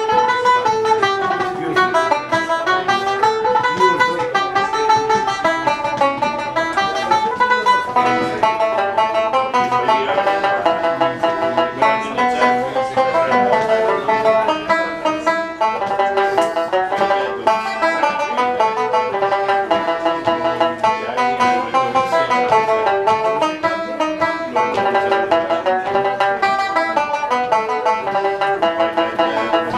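Banjo playing a traditional Irish session tune, a fast, unbroken run of picked notes.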